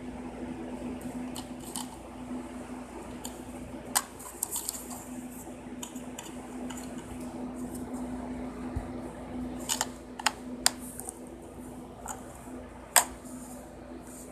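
Plastic DVD case being handled and opened, giving sharp clicks (one about four seconds in, a quick cluster near ten seconds, and the loudest near the end) over a steady low hum.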